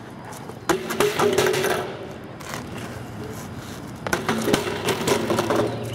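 A BMX bike hitting and clattering on concrete as the rider bails forward off a hang-5, the bars pushed down to the ground. Two sharp bangs about three seconds apart, each followed by a second or so of rattling and scraping.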